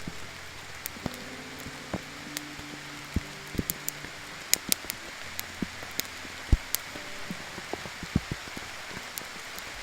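Rain falling steadily, with many separate drops striking a surface as sharp irregular taps, a few of them loud.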